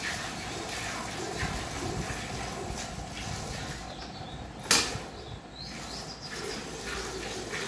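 Milk squirting in spurts into a steel bucket as a cow is milked by hand, a short stroke with each pull of the teat, repeating unevenly. A sharp knock about halfway through is the loudest sound.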